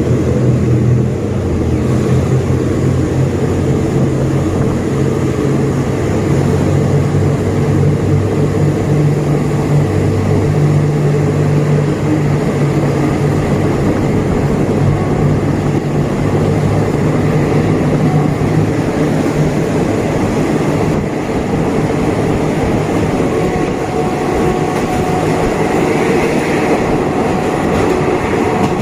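Passenger train under way, heard from a carriage window: the diesel locomotive's engine makes a steady low hum, strongest in the first half, over the rumble of the wheels on the rails.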